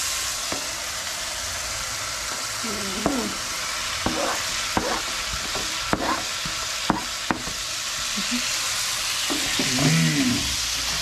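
Julienned carrots and bell peppers sizzling as they stir-fry in a frying pan on a gas stove, with a wooden spoon stirring and scraping them. Several sharp taps of the spoon against the pan come in the middle.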